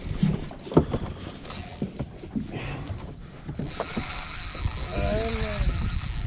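Daiwa spinning reel being cranked: a few clicks and knocks, then, from about halfway, the steady whir of the reel winding in line.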